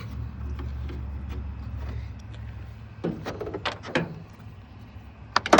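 Metal clicks, scrapes and clunks from handling a 1970s Carrier window air conditioner while trying to slide its chassis out of the sheet-metal case, over a low steady hum. The clicks bunch up from about three seconds in, and two loud knocks come near the end.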